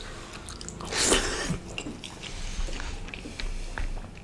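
Close-miked chewing and wet mouth sounds of a person eating rice and mutton curry by hand: many small smacks and clicks, with one louder hissing sound about a second in.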